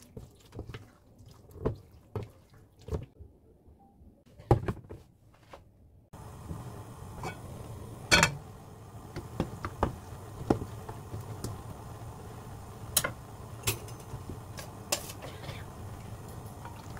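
Oyster and chilli batter being stirred in a bowl, with scattered wet clicks and knocks. About six seconds in, a steady hiss sets in with a few sharp clicks as cooking oil heats in a nonstick frying pan.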